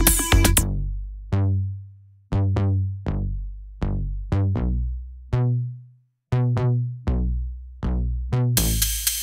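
Background electronic music with a drum machine: a busy synth passage stops about half a second in, then deep booming bass-drum hits come at uneven intervals, each dying away. A hiss of cymbals comes in near the end.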